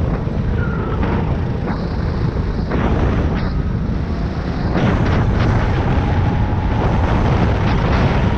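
Go-kart engine running hard at racing speed, heard onboard with wind rushing over the microphone; it gets a little louder about five seconds in.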